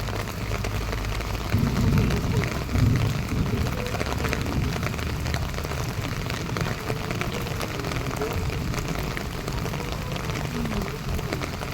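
Heavy rain falling: a steady hiss of many drops pattering, with a low rumble underneath.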